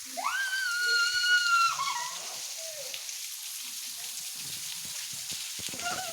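Steady hiss of falling water from a waterfall. A loud, long, high-pitched call starts just after the beginning, holds its pitch for about a second and a half, then falls off. Low murmurs follow.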